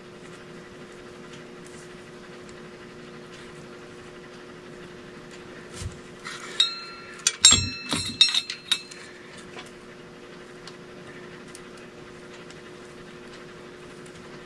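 Small metal parts clinking together several times, some strikes ringing briefly, between about six and nine seconds in, over a steady low hum.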